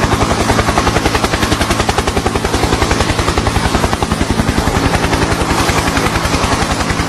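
Helicopter sound: a rapid, even chopping of rotor blades over a steady low hum.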